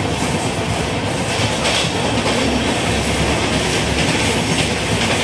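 Steady running noise of a moving Indian Railways Intercity Express passenger train heard from inside the coach, with wheels rumbling on the rails.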